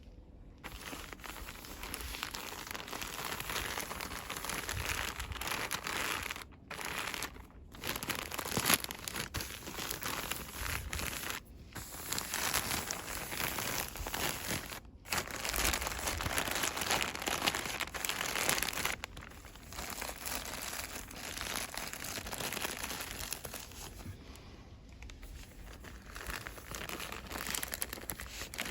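Fast, continuous crinkling and rustling of cosmetic product packaging handled by hand, broken by a few brief pauses.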